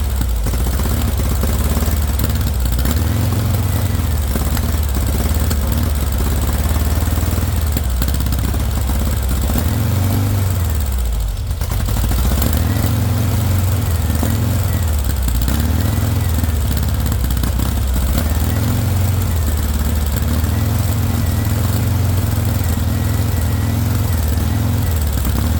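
Straight-piped VW engine running loud on starting spray, the revs wavering up and down with a brief sag about eleven seconds in before picking back up. It runs only on the spray because it gets no fuel pressure, which the owner puts down to a possibly bad fuel pump.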